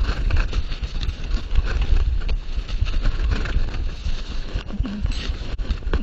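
Handling noise from a body-worn camera: jacket fabric rubbing and knocking against the microphone as the wearer moves, a dense irregular scuffing with a heavy low rumble.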